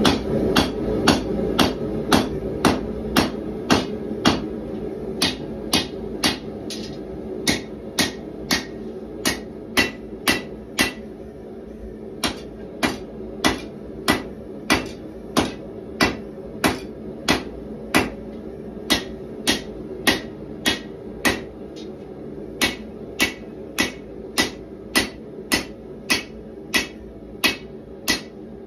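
Hand hammer striking red-hot 1095 steel bar stock on an anvil while forging a knife blade: sharp ringing blows in a steady rhythm of about two a second, with a few short pauses. A steady low hum runs underneath.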